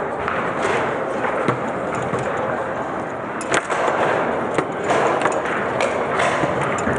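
Table football ball being shot and blocked on a Lehmacher foosball table: sharp cracks and clacks of the ball against the plastic players and table walls, and rods knocking, the loudest about halfway through, over a steady background hubbub.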